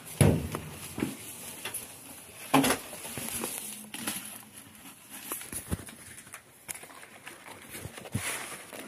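Handling noise: a couple of dull knocks and scattered clicks and rustles as papers and household objects are moved about.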